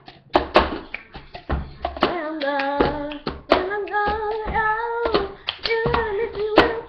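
A girl singing while doing the cup game: hand claps, taps, and a plastic cup slapped and knocked on a wooden tabletop in a steady rhythm. After a few strikes, the singing comes in about two seconds in and carries on over the cup and clap beats.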